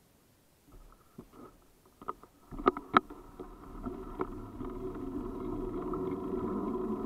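Tyres rolling down a loose gravel road. A few sharp clicks and knocks sound about a third of the way in, then a steady rumbling that grows louder as the descent picks up speed.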